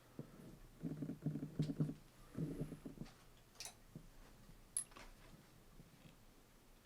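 Faint handling noises: two spells of quick rattling and rubbing as cord and wire are pulled through a kayak seat frame, followed by a few sharp clicks.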